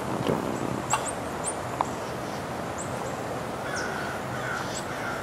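Steady hum of honeybees around an open hive frame, with short high bird chirps scattered through and a lower bird call about four seconds in.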